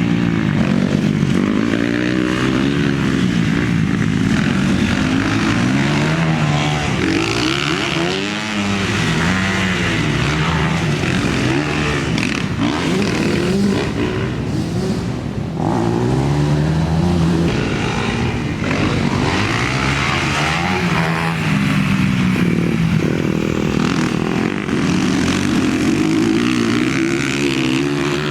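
Dirt bike engine being ridden hard, its pitch rising and falling every second or two as the throttle is opened and closed through the gears.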